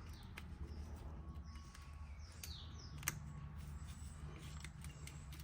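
Faint bird chirps, a few short calls, over a low steady hum, with light scattered clicks and one sharper click about three seconds in.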